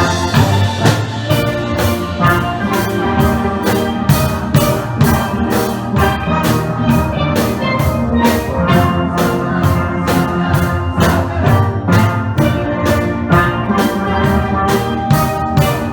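Steel band playing live: steelpans ringing out melody and chords over a steady drum beat.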